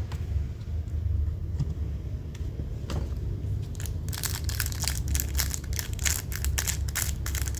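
Handling noise close to the microphone: a low steady rumble, then from about four seconds in a dense run of crinkling and small clicks.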